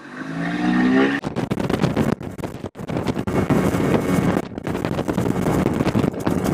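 Boat motor revving up from idle, its hum rising in pitch over the first second. The boat then runs under way with a loud, rough rushing noise, broken by a few brief dropouts.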